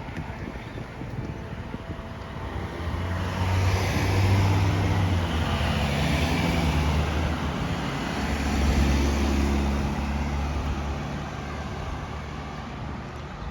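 Road traffic going past: engine hum and tyre noise swell a few seconds in, stay up, and fade toward the end.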